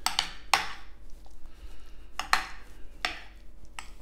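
Metal spoon pressing and scraping baked beans flat in a glass baking dish, with about five short scrapes and clinks of the spoon against the dish.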